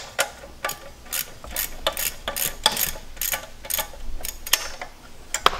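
Quarter-inch ratchet clicking, about three clicks a second, as it backs out an already broken-loose 10 mm studded bolt on the EGR bypass valve of a Cummins 6.7 diesel.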